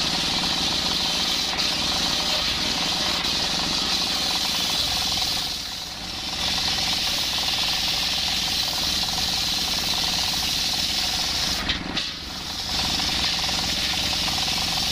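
Large circular saw blade ripping lengthwise through a coconut log, driven by a stationary single-cylinder diesel engine: a loud, steady, high-pitched sawing hiss over the engine's running. It dips briefly twice, about six seconds in and again about twelve seconds in.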